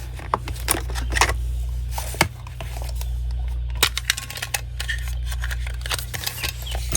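Scattered clicks and light taps of watercolour supplies being handled, over a steady low hum.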